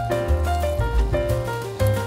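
Instrumental background music: a melody of short notes over low bass notes.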